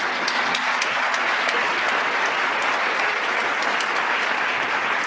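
An audience applauding: dense, steady clapping.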